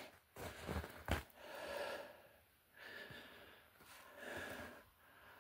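Faint sounds of a person pushing through dense, snowy brush: two brief knocks or twig snaps about a second apart early on, then soft breaths every second or so.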